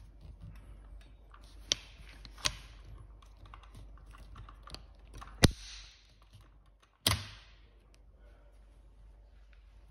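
Handling noises from an indoor rollator: light clicks and rattles with four sharp knocks, the loudest about halfway through.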